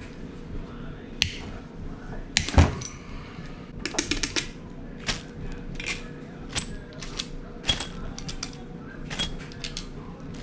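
Hand tools, bolts and engine parts clicking and clinking against metal during engine disassembly: a scattered series of sharp taps, some ringing briefly, with a louder knock about two and a half seconds in and a quick run of clicks about four seconds in.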